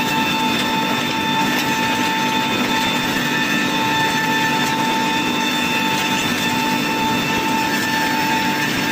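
Wood core milling machine for broom handles running steadily, milling wooden rods into round handles: a continuous high whine over even mechanical noise.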